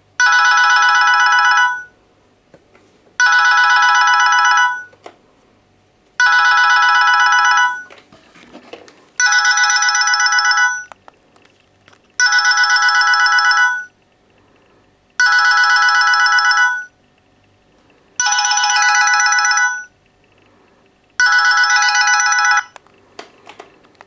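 Texet B200 alarm tone going off: a rapidly pulsing multi-tone beep in bursts of about a second and a half, repeating every three seconds, eight times.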